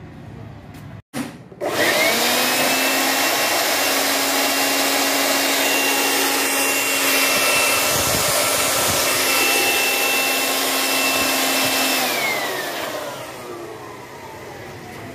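Air blower running for about ten seconds, blowing air into the engine crankcase to force out the remaining old oil during an oil change. Its motor whine rises as it starts and winds down slowly after it stops near the end.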